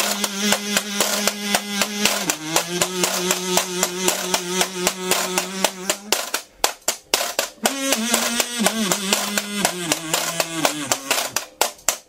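Kazoo buzzing long held notes, dropping slightly in pitch about two seconds in, over a steady washboard rhythm of about four strokes a second. Around the middle the kazoo stops for a second or so, leaving the washboard alone, then comes back with shorter wavering notes.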